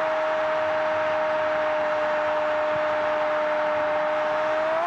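A male Spanish-language football commentator holding a long goal call, "goooool", on one steady pitch over a cheering stadium crowd. The cry drops off right at the end.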